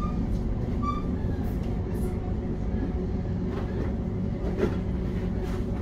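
Steady low rumble inside a Class 710 electric train carriage on the move, from the wheels on the track and the train's running gear, with a few faint clicks and a brief high squeak about a second in.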